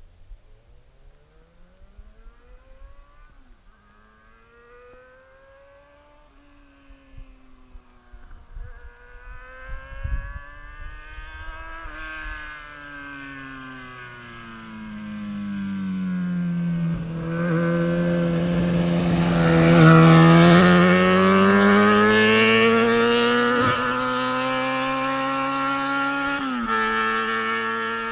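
Yamaha XJ6 Diversion's inline four-cylinder motorcycle engine accelerating through the gears, the revs climbing and dropping at each shift. It grows louder to its loudest around twenty seconds in, where the revs dip and climb again, then drops suddenly in pitch near the end and holds a steadier note.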